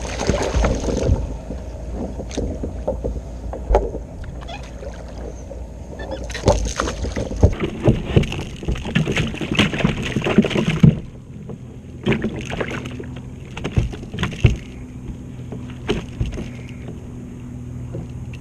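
A spotted seatrout being landed in a plastic sit-on-top kayak: splashing and clatter as the fish comes aboard and flops on the deck, knocking against the hull, busiest in the middle, then scattered knocks as it is handled and unhooked.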